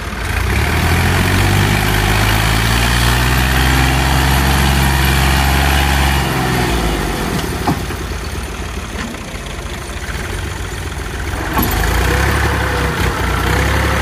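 Al-Ghazi farm tractor's diesel engine running. It drops to a quieter, lower note about halfway through and comes back up a couple of seconds before the end.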